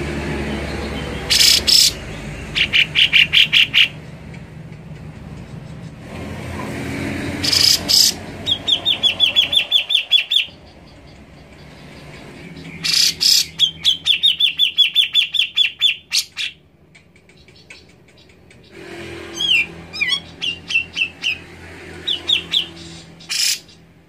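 Grey-cheeked bulbul (cucak jenggot) calling in four phrases. Each phrase opens with a loud harsh note and runs into a fast string of about ten to fifteen short repeated chattering notes. The last phrase, near the end, is more broken and varied.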